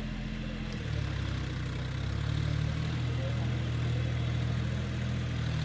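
John Deere tractor's diesel engine running steadily at working speed, its low pitch shifting slightly about a second in and again a little after two seconds.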